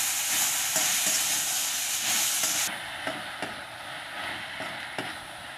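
Sliced onions, tomatoes and mint sizzling in hot oil in a metal kadai while a spatula stirs and scrapes them around the pan. The sizzle suddenly turns quieter about halfway through, leaving softer frying with a few sharp spatula scrapes.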